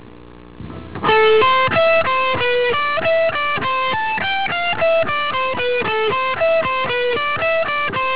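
Electric guitar playing a classical, Baroque-style lick slowly, one clean single note at a time, about three notes a second, starting about a second in.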